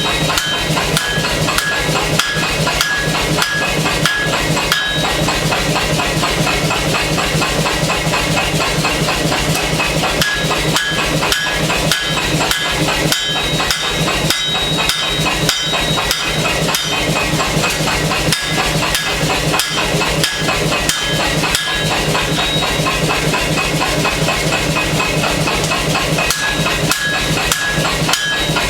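Rapid, steady hammer blows on hot steel during forging, several strikes a second without a pause.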